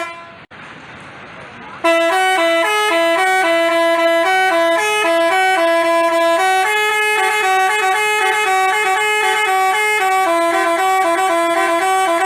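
Multi-tone Basuri 'telolet' bus horn playing a tune of short stepping notes, starting about two seconds in. Before that, a quieter hiss with a single click.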